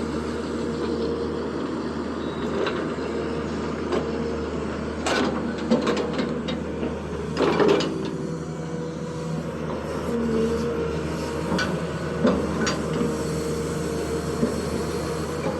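Zoomlion excavator's diesel engine running steadily with a constant whine over it, and several sharp knocks now and then, the loudest in the middle.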